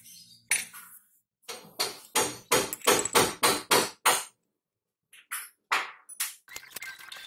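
A quick run of about ten sharp, loud knocks, about three a second, then three more knocks spaced further apart near the end.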